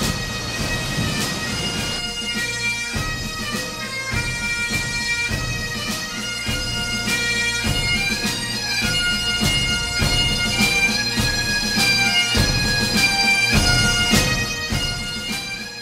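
Bagpipe music: a melody of held notes over a steady drone.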